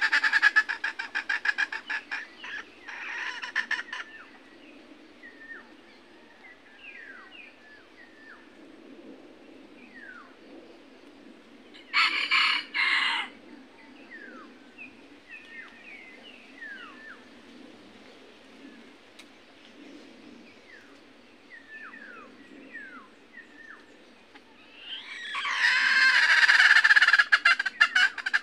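Red junglefowl rooster crowing several times: one crow already under way at the start with a shorter one after it, a brief crow about twelve seconds in, and a longer crow near the end. Faint short downward-sliding calls come in the quieter stretch between.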